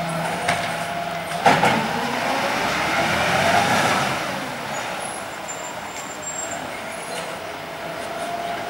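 Volvo side-loader garbage truck at work: a steady whine cuts off just after the start, a sharp bang comes about one and a half seconds in, and then the engine revs up as the truck pulls forward to the next bins before easing off.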